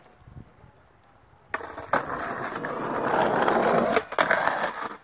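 Skateboard wheels rolling over pavement, starting about a second and a half in and growing louder as the board comes close, broken by several sharp knocks from the board, the loudest at the very end.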